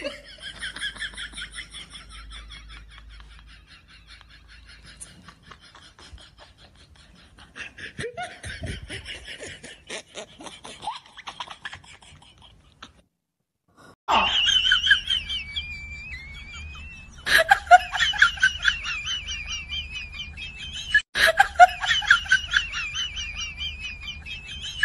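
People laughing: quick, high-pitched laughter, fainter at first and much louder in the second half, broken off by several abrupt cuts.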